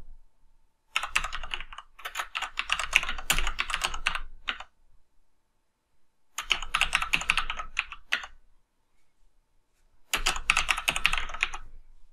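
Computer keyboard being typed on in three bursts of rapid keystrokes, with short pauses between them.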